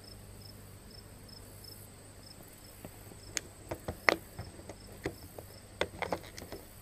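Crickets chirping in a steady, regular pattern. From about three seconds in come a series of sharp plastic clicks and scrapes as the lid of a bait tub is twisted and worked open.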